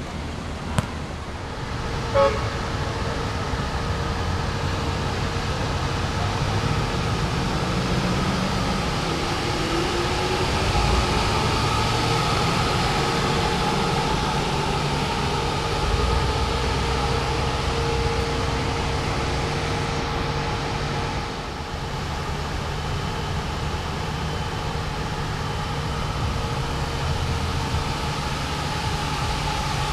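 Steady noise of busy city road traffic, with a short sharp knock about two seconds in.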